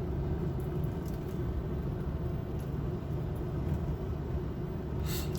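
Steady low rumble of a pickup truck driving on the road, heard from inside the cab.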